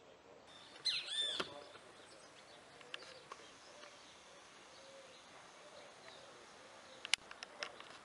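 A bird calling over faint outdoor background noise: a short, loud burst of chirps about a second in, then a few quick, sharp chirps near the end.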